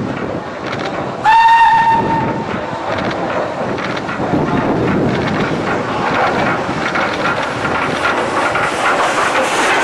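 Narrow-gauge sugar-railway steam locomotive No. 346 sounding one short, steady whistle blast about a second in, then running on with a rumble and wheel clatter that grow louder toward the end.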